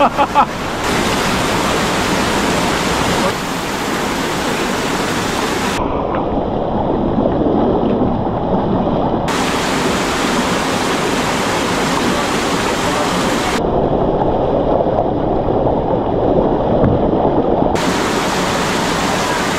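Steady rushing of a mountain stream's cascading water. Twice, for a few seconds at a time, the sound turns abruptly duller as its high hiss drops out, then returns.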